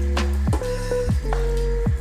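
Background music: a steady bass and held notes over a light beat.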